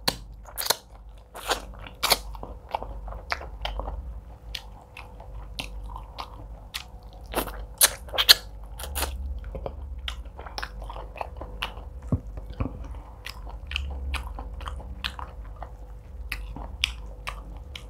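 Close-miked chewing of a mouthful of egusi soup and fufu eaten by hand, with many short wet mouth clicks and smacks scattered irregularly throughout.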